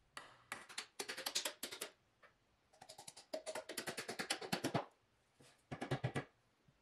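Rubber mallet rapping on the end of a wooden axe handle, driving it into the eye of a double-bit axe head to seat it: three quick runs of knocks, several a second, with short pauses between.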